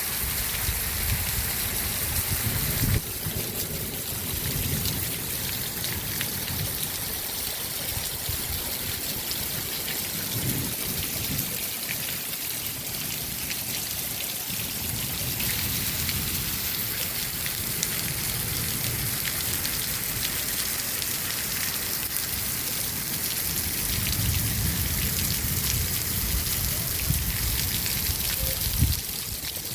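Heavy rain falling steadily, a dense patter of drops on surfaces with some low rumbling underneath.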